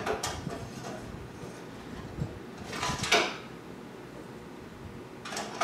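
Hardware being handled and slid inside a steel desktop computer case: three short scraping rattles, one at the start, one about three seconds in and one at the end.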